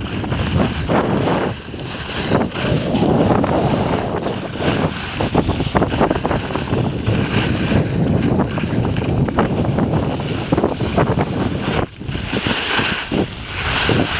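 Wind buffeting the microphone of a camera carried by a skier going downhill, mixed with the hiss and scrape of skis carving on packed snow. It dips briefly twice.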